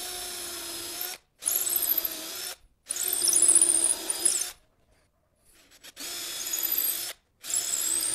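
Cordless drill boring a small pilot hole into a hardwood board, which will guide a larger spade bit. It runs in four short bursts of about a second each with brief stops between, and its whine rises in pitch within some of the bursts.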